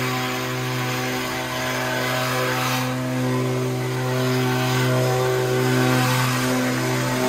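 Handheld gas leaf blower running at a steady speed, a constant engine drone over the rush of air; the air rush swells briefly about three seconds in.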